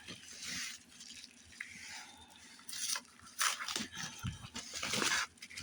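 Bubble wrap rustling and crinkling as painter's tape is peeled off it, in several irregular bursts, the loudest about three and a half and five seconds in.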